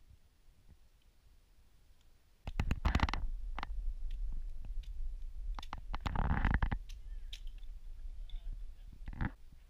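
Split wood and bark knocking and scraping as kindling is stacked in a metal fire pit. From about two and a half seconds in, this comes over a low rumbling noise on the microphone, with a longer rush of noise a little after the middle.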